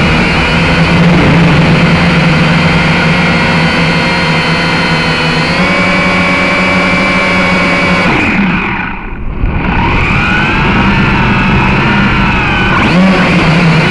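Syma X5C-1 quadcopter's small motors whining steadily with a stacked, buzzing pitch over wind rumble. About eight seconds in the whine drops away and the sound dips as the motors throttle down, then it climbs back about two seconds later.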